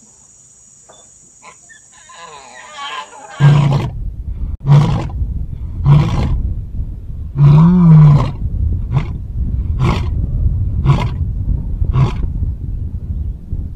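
Male lion roaring: a bout that begins about three seconds in with a few long, loud roars, then tails off into a series of shorter grunting roars about one a second.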